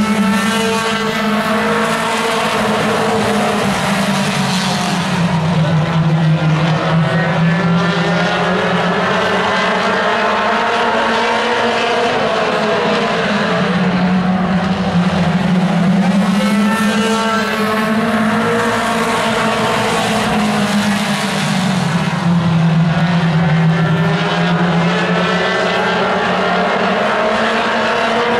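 A pack of mini stock race cars running laps on an oval, their engines blending into one loud, continuous drone whose pitch rises and falls in waves as the cars accelerate down the straights and lift for the turns.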